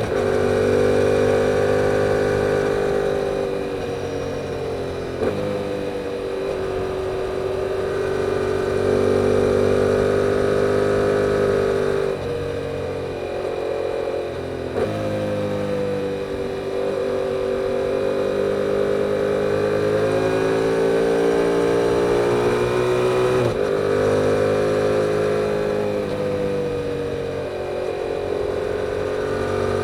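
2022 Yamaha R7's 689 cc parallel-twin engine on its stock exhaust, heard from the bike while riding. The engine note rises and falls as the rider rolls on and off the throttle, with brief breaks in the note several times, typical of gear changes.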